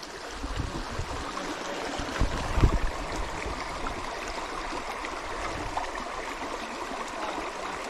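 Shallow rocky creek flowing and rippling steadily, with a few low bumps a little over two seconds in.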